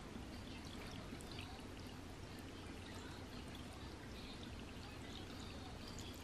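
Faint, steady trickle of anchovy stock being poured into a shallow stew pot packed with tofu, kimchi and ramen.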